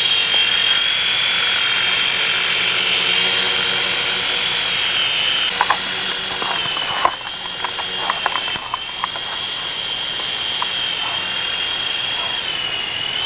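Mini Chinook RC helicopter's small electric motors and rotors whining steadily at a high pitch, which dips slightly a couple of times. Several sharp clicks and knocks come in the middle.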